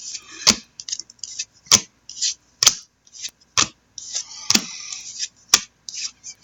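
Football trading cards being flipped one at a time through a stack in the hand: a sharp card snap about once a second, with the papery rustle of cards sliding against each other between snaps.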